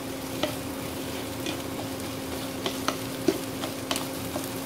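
Scrambled egg sizzling in a non-stick frying pan while a slotted spatula stirs and breaks it up, clicking against the pan about six times. A steady low hum runs underneath.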